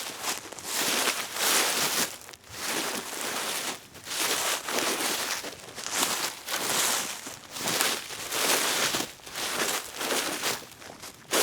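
Leaves on a forest floor being moved and stirred, rustling in a series of strokes about a second long with short pauses between.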